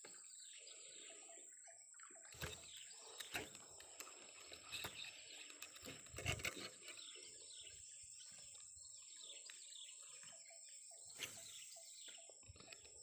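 Faint birds chirping over a steady high-pitched whine, broken by a few sharp knocks and rustles from handling the fishing rod and reel, the loudest just after six seconds.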